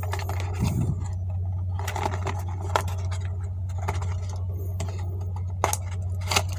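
Small cardboard box being handled and opened by hand: scraping and rustling with a few sharp clicks, over a steady low hum.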